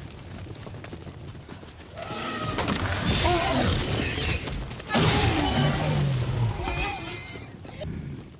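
Film sound effects of a dinosaur attack. A rumble of the stampeding flock comes first; from about two seconds in, shrill shrieking animal calls bend up and down, and a deeper drawn-out growl joins about halfway through, with thuds and crashes under it.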